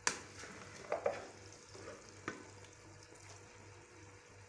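Boiled elbow macaroni tipped into a pot of frying vegetables, with a faint sizzle underneath. There is a sharp clatter against the pot at the start, two more knocks about a second in, and another a little past two seconds.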